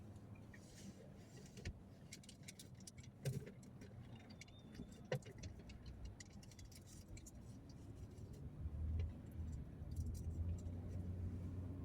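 Low rumble of a vehicle on the move, with scattered light clicks and rattles; the rumble grows louder about eight or nine seconds in.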